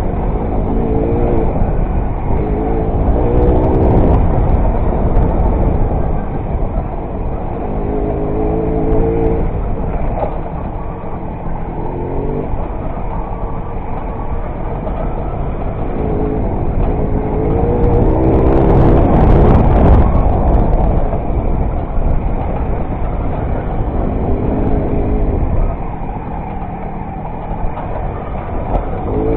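Old Derbi Variant moped's small two-stroke engine running along a rough trail, its note rising in short spurts every few seconds as the throttle is opened and eased off. Heavy wind rumble on the helmet camera's microphone, loudest about two-thirds of the way through.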